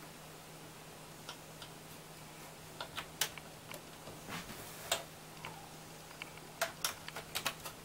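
Scattered light clicks and taps of an HDMI cable plug being handled and pushed into the graphics card's HDMI port at the back of a metal PC case, coming more often near the end, over a faint steady hum.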